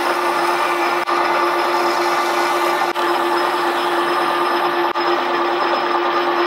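Metal lathe running steadily while sandpaper is pressed by hand against the inside of a spinning titanium Damascus ring: a steady hum with a hiss of abrasive rubbing over it.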